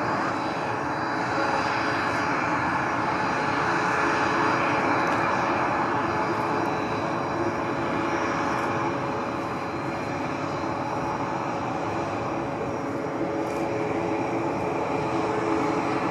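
Airliner jet engines running loudly and steadily as a plane passes near the runway: a continuous rush with a steady whine, easing slightly about two-thirds of the way through.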